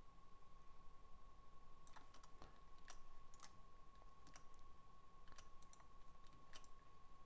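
Near silence with faint, irregular clicks of a computer mouse and keyboard, several over a few seconds, above a faint steady tone.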